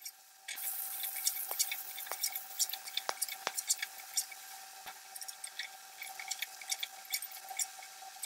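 Jackfruit pieces frying in mustard oil in an iron kadhai, a steady sizzle with many small crackles, and a metal spatula scraping and knocking against the pan as they are stirred. The sizzle comes in suddenly about half a second in, with a few sharp spatula knocks over the next few seconds.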